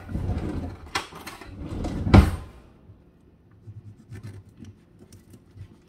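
A kitchen drawer is pulled open and utensils rattle and clink as a knife is taken out. The drawer slides shut with a knock a little over two seconds in, the loudest moment. After that come only faint small clicks of handling.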